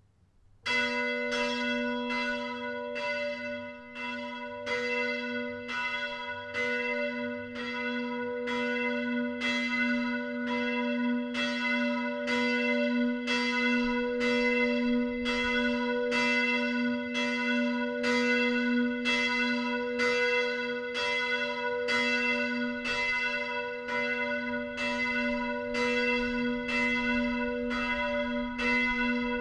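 A single church bell swinging and ringing on its own, the clapper striking steadily a little under once a second with the tone ringing on between strokes. It is the Betglocke, the largest bell of a three-bell peal, with strike note B (h′).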